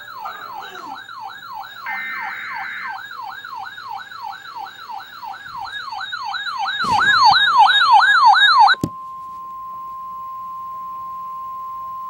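An electronic siren sweeps rapidly up and down, about three times a second, and grows louder. It cuts off suddenly about nine seconds in, and a steady single-pitch NOAA Weather Radio 1050 Hz alert tone takes over, the signal that a warning broadcast is about to follow.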